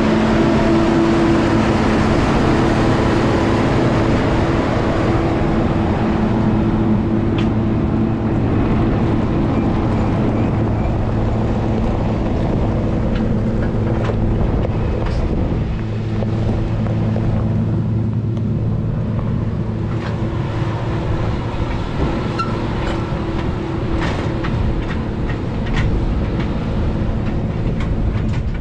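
AGCO DT240 tractor's diesel engine running steadily as it pulls an anhydrous ammonia toolbar and nurse tank past, loudest in the first half and fading as it moves off. Rattles and clanks from the toolbar and tank's running gear become more frequent in the second half.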